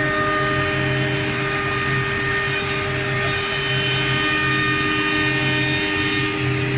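ATC CNC router's spindle running steadily, with a constant whine, while its cutter mills a groove into a wooden door panel, over the rush of the spindle's dust extraction.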